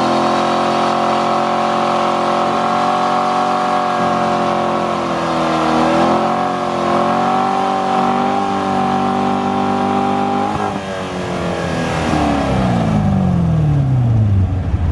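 Corvette C7 Stingray's 6.2-litre LT1 V8 held at high revs during a burnout, rear tyres spinning in smoke. About ten seconds in the revs drop, and the engine note falls steadily over the next few seconds as it winds down.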